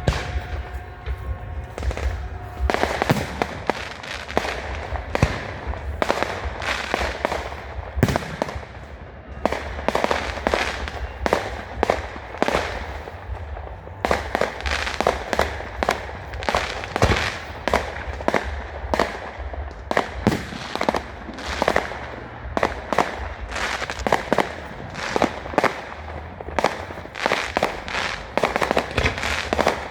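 Fireworks display going off in rapid, dense succession: sharp bangs and crackling bursts, several a second, over a steady low rumble.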